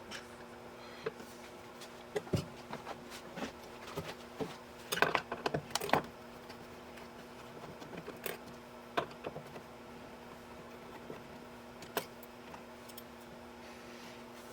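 Scattered clicks, taps and light clatter of small hard parts and tools being handled, with a quick run of rattling clicks about five seconds in, over a steady low hum.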